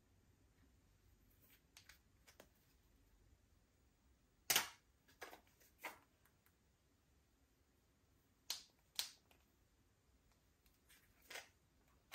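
Slime being pressed and stretched by hand, giving a handful of sharp little pops and clicks, the loudest about four and a half seconds in, over near silence.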